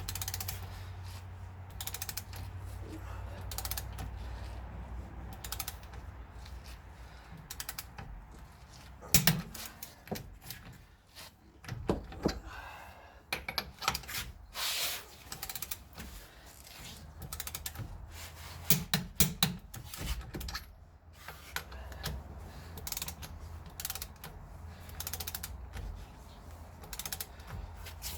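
Hand ratchet clicking in runs as wheel-spacer nuts are run on and tightened, with a few louder metal knocks.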